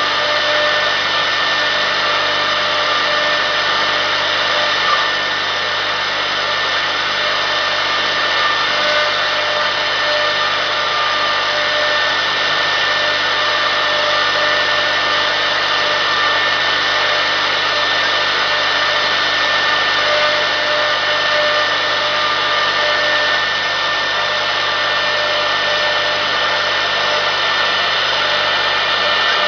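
1325 rotary CNC woodworking router running: a steady, even machine noise with a constant whine from the spindle.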